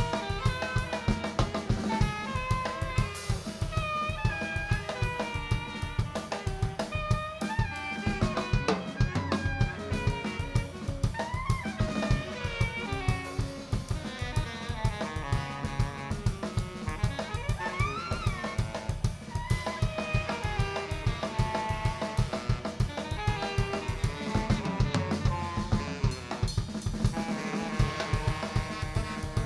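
Live jazz ensemble playing, with a busy drum kit (snare and bass-drum hits) under melodic lines from saxophones, electric guitar, piano and bass.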